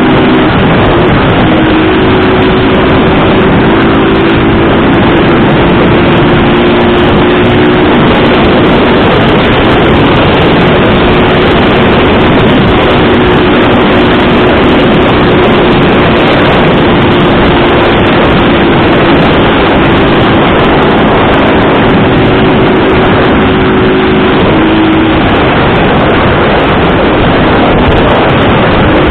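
Motorcycle engine running at a steady cruise under loud, constant wind rush on the microphone, its pitch holding nearly level and shifting only slightly now and then.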